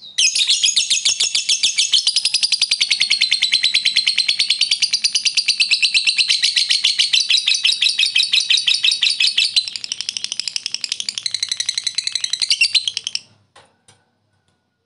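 Lovebird's ngekek: one long, unbroken chattering trill of very rapid repeated notes, lasting about thirteen seconds before stopping abruptly. This is the long ngekek song that fanciers use to provoke rival lovebirds.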